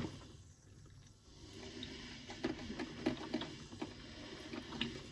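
DeLonghi drip filter coffee maker brewing: faint, irregular gurgling and bubbling with small pops as the heater pushes water up to the filter and coffee drips into the glass carafe. It sets in about a second in.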